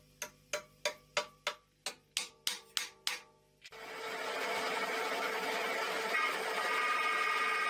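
Small hammer tapping tapered steel pins lightly into the vise body, about a dozen ringing metallic blows about three a second. Then the Archdale vertical milling machine's spindle starts and runs steadily with a whine, driving a drill bit.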